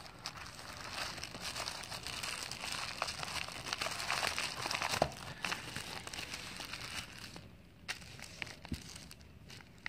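Plastic shipping mailer and clear plastic bag crinkling as they are pulled open and handled. The crackling is dense for about seven seconds, then thins to a few scattered rustles and clicks.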